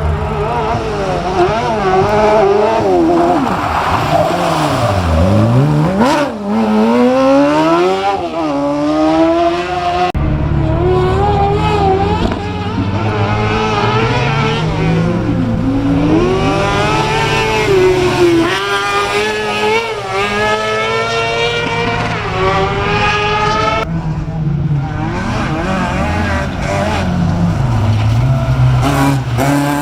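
Engines of several off-road 4x4 race cars revving hard through a corner, their pitch repeatedly dropping and climbing as the drivers lift off and accelerate, often two or more engines overlapping.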